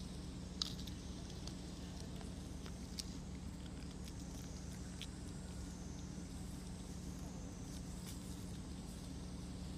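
Long-tailed macaque eating on dry leaf litter: a few faint, scattered clicks and rustles over a steady low background hum.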